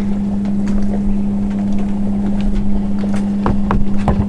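An engine hums steadily at one unchanging pitch, with a few knocks near the end.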